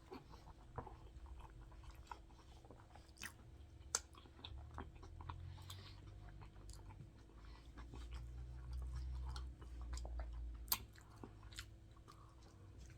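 Person chewing food close to the microphone, with scattered wet mouth clicks and a few sharper clicks. A low muffled rumble swells about eight seconds in and fades about two and a half seconds later.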